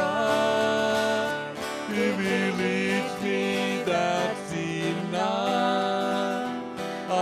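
A man and a woman singing a slow gospel hymn together, accompanied by an acoustic guitar.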